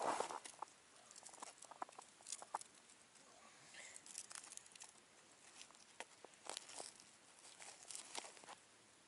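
Faint, scattered light clicks and rustles of hands working a live baitfish onto a pike tip-up rig on the ice, with a brief louder crackling rustle right at the start.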